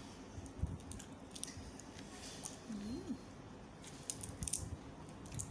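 Faint crackling and clicking of cooked shrimp shells being pulled apart by hand, in scattered bursts with a quick cluster about four seconds in. A brief hummed note that rises and falls comes about halfway through.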